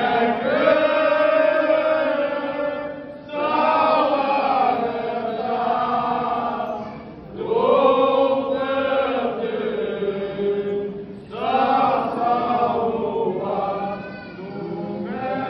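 A group of men singing a Romanian colindă (Christmas carol) unaccompanied, in sung lines of about four seconds with a short break between each.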